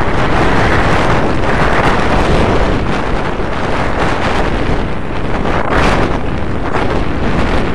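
Loud, steady wind rush buffeting a helmet-mounted camera microphone during a downhill inline skate run at about 40–45 km/h, mixed with the rolling of skate wheels on asphalt.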